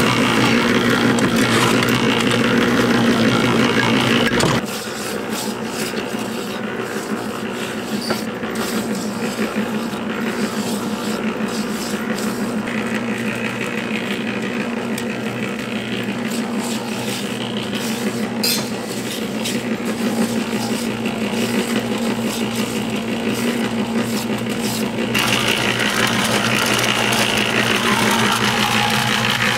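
Electric cement mixer running with a steady mechanical hum. The background around it changes abruptly twice, about four seconds in and near the end.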